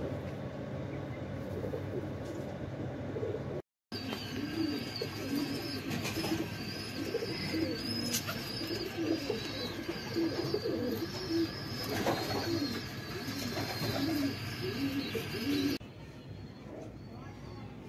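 Black teddy pigeons cooing, a run of low rising-and-falling coos one after another, with a thin high wavering whistle behind them. The sound drops out briefly about four seconds in and turns quieter near the end.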